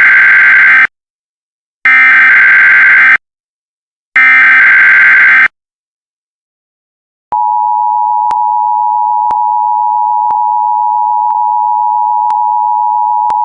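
Emergency Alert System SAME header: three loud, roughly one-second bursts of buzzing digital data, a couple of seconds apart. After a short pause comes the EAS two-tone attention signal, a steady harsh tone that starts about seven seconds in and holds.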